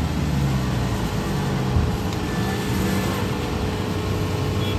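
Rice combine harvester's engine running steadily with a low drone.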